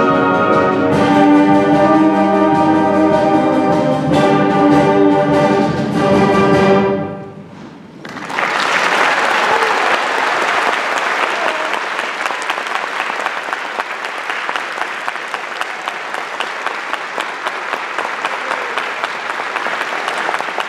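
Middle-school concert band holding loud sustained closing chords, with brass prominent and the chord changing a couple of times. The band cuts off about seven seconds in, the sound dies away briefly, and an audience breaks into steady applause.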